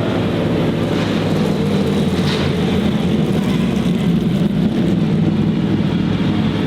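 A motor vehicle's engine running close by at steady, low revs, loud and even.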